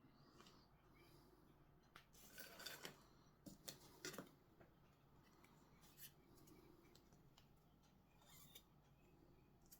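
Near silence with faint clicks and short scrapes of hand work on small 3D-printed plastic parts, mostly between about two and four and a half seconds in.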